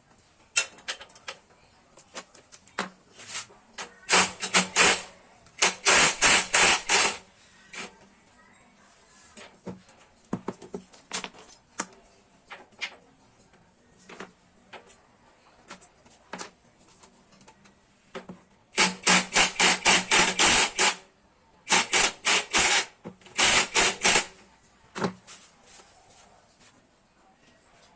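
Ratchet wrench clicking in several quick bursts of a second or two as motorcycle exhaust pipe bolts are worked loose, with scattered metal clinks of tools and parts between bursts.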